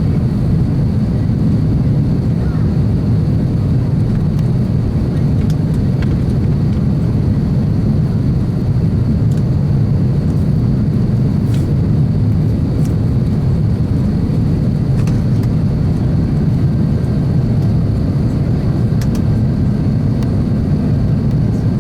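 Steady cabin roar of an Airbus A350-1000 in flight, its Rolls-Royce Trent XWB engines and the airflow making a low, even rumble with a faint high whine held on top.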